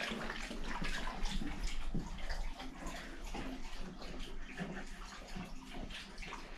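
Water running from a tap into a sink while three dogs drink from it, with a steady stream of quick, irregular lapping and splashing.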